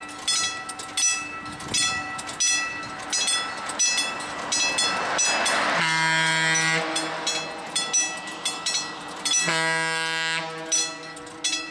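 A Leslie Tyfon A-200 air horn on a Western Pacific F7A locomotive sounds two blasts, one about six seconds in and a longer one about nine and a half seconds in. Behind them a bell rings steadily, about once every three-quarters of a second.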